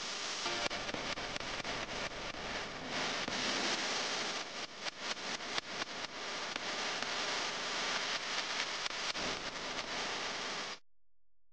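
Steady hiss of recording noise with scattered irregular clicks. It cuts off suddenly to near silence just before the end.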